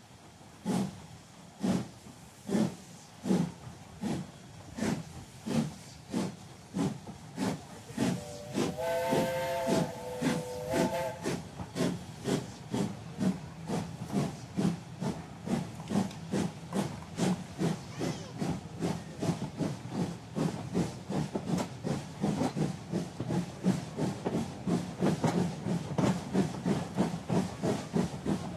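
Steam locomotive exhaust chuffing as it gets under way, the beats speeding up from about one a second to about three a second. A chime steam whistle sounds for about three seconds, some eight seconds in.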